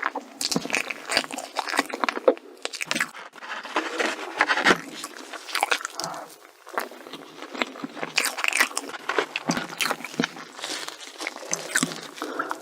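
Close-miked eating of crunchy chocolate desserts: bites and chewing give a dense run of crisp crunches and crackles, easing off briefly about halfway through.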